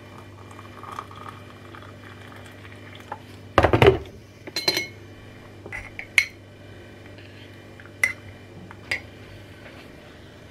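A metal teaspoon clinking against a ceramic mug as tea is made and stirred. There is a loud clatter about three and a half seconds in, then a few sharp ringing taps spaced a second or two apart.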